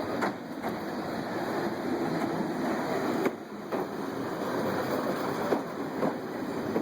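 Railway train running, a steady rushing noise broken by a few sharp clicks.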